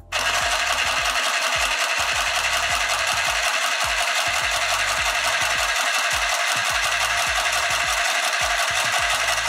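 Handheld sewing machine running steadily, stitching through a piece of genuine leather on its suede side: a fast, even mechanical clatter that starts abruptly and keeps going without a break.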